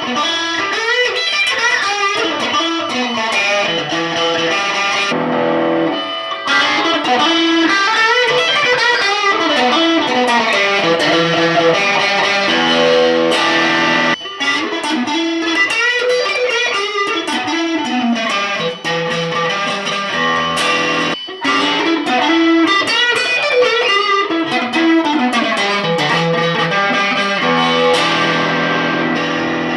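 Electric guitar played through a BOSS Katana 50 Mk II combo amp: a continuous stream of quick single-note runs and arpeggios. There are short breaks about five seconds in, around the middle, and about two-thirds of the way through.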